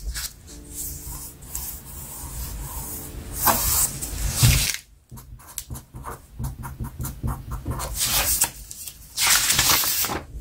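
A sheet of pattern paper rustling and sliding over a cutting mat, loudest twice, around the middle and again near the end. In between comes the light scratch of a pen writing on the paper.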